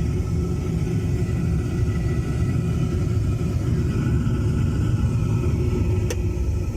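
Oil-fired heating boiler's exhaust, a steady low rumble from the running burner, with a faint steady tone above it. A single sharp click comes near the end.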